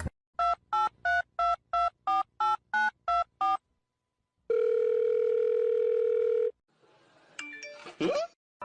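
Telephone keypad tones: about eleven quick beeps dialling a number, followed by a steady tone lasting about two seconds. A short sliding sound comes near the end.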